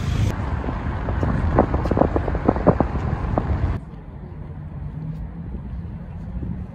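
Wind buffeting the microphone with irregular knocks and rustles. About four seconds in, the sound cuts abruptly to a quieter, steady low hum.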